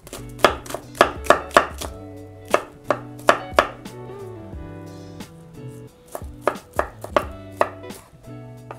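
Red onion being chopped by hand with a kitchen knife on a wooden cutting board: about a dozen sharp, uneven knocks of the blade against the board, with a quieter pause around the middle.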